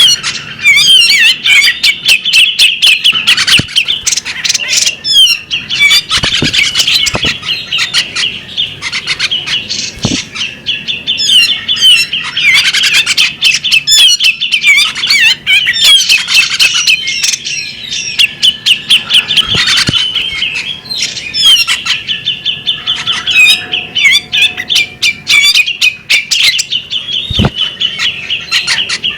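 Female magpie-robin singing continuously: rapid chattering phrases of sharp chirps, whistles and trills, one after another without a break.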